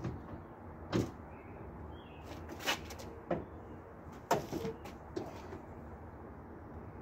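Hood of a 1982 Ford Mustang GT being unlatched and raised: a sharp click about a second in, then a run of metallic clicks and clunks from the latch and hinges as the hood swings up.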